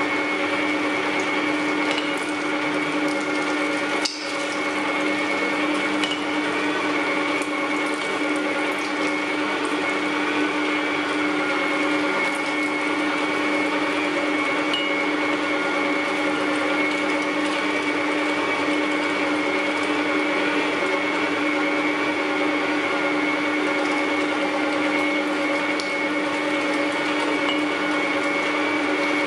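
Electric meat grinder running steadily under load as it forces meat through the mincing plate, its motor giving a constant whine with a brief dip about four seconds in.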